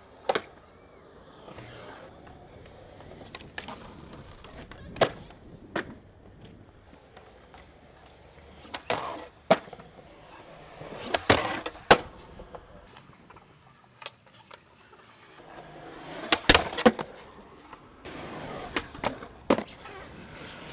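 Skateboard wheels rolling on concrete, broken by about a dozen sharp cracks of the board striking the ground, several of them in quick pairs.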